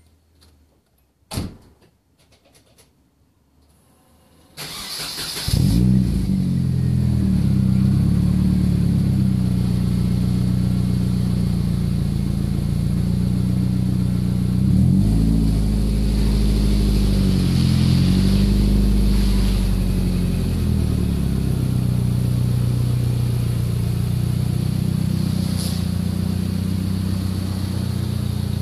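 A sharp knock, then the Nissan 240SX's engine is cranked and catches about four and a half seconds in, settling into a steady idle with a few brief revs in the middle.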